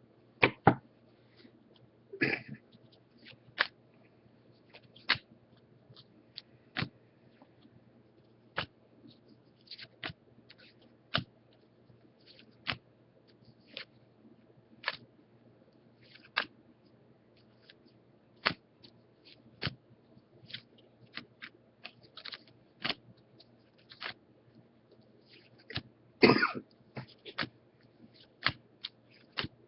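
Baseball trading cards being flipped through one at a time, a short sharp card flick or snap roughly every second. A longer, louder noise comes near the end.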